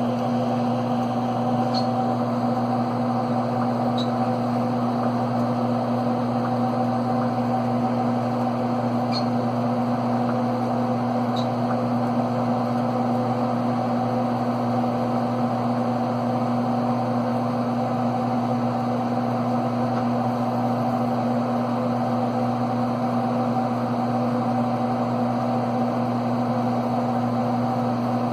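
Steady mains hum and fan noise from a running DEC PDP-12 minicomputer during its tape data test, with a few faint high ticks.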